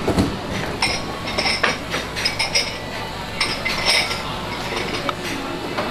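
Tableware clinking in several quick clusters of light, ringing clinks, over steady restaurant background noise.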